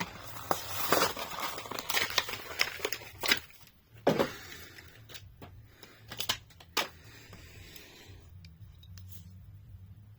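Cardboard-and-plastic blister package of a diecast toy car being torn open and crinkled, with several sharp snaps along the way, for about eight seconds before it goes quiet.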